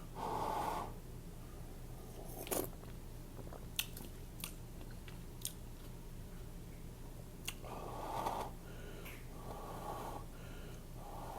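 Close-up chewing of noodles with sharp wet mouth clicks every second or so, and heavy breaths in and out near the start and several times toward the end.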